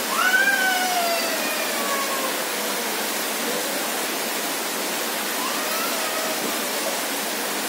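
Heavy rain pouring onto a flooded street and into standing water, a steady dense hiss. In the first three seconds a single drawn-out call with overtones sounds over the rain, sliding down in pitch, and a fainter short one comes near the end.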